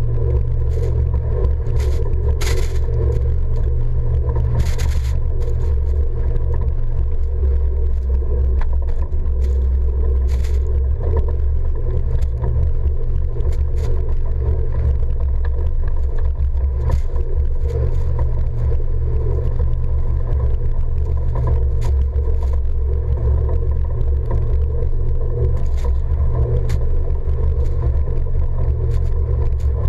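A vehicle driving through deep snow, heard through a camera mounted on its side: a steady low rumble of engine and tyres, with scattered ticks and scrapes from snow spray striking the camera.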